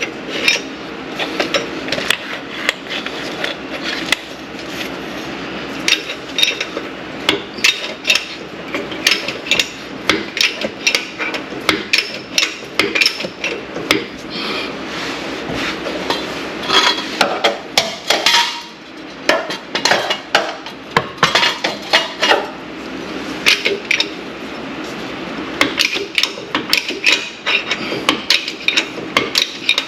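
Irregular sharp metal clinks and taps from hand tools working against metal parts, several a second in uneven clusters, with a short lull a little past halfway.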